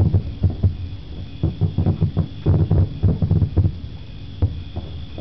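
Fireworks display: a rapid, irregular volley of deep bangs and pops, bunched at the start and again through the middle, thinning out near the end.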